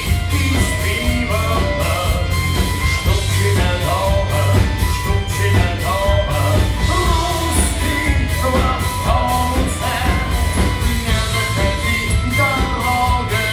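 Live rock band playing: drums, bass guitar, electric guitar and keyboards, with regular drum hits.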